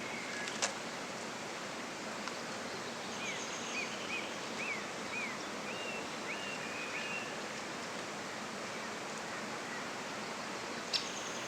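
Steady outdoor hiss of open countryside, with a faint run of about six short, thin bird calls in the middle, each one briefly rising and falling in pitch. A single sharp click comes about half a second in.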